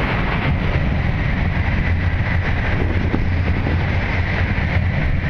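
E2 series Shinkansen train passing at speed: a loud steady noise with a low rumble and a thin high whine.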